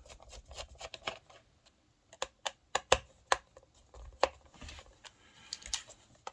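Irregular light clicks and taps from a ThinkPad T470p laptop being handled, about a dozen unevenly spaced.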